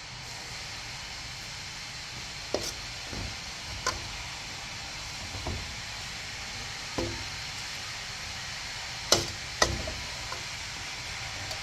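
Metal spatula knocking and scraping in a pan at irregular intervals, about six sharp knocks with the loudest two close together near the end, over a steady hiss of frying, as minced pork and prahok are stir-fried.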